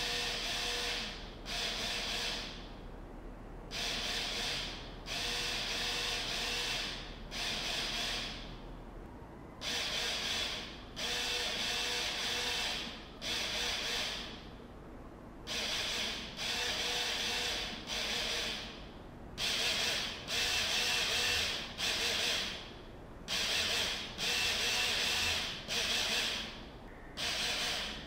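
Small DC motors whirring in starts and stops, in short and longer runs, as they churn out an S.O.S. Morse code call. The motors wind thin wires that tug at perimeter trip alarms without setting them off.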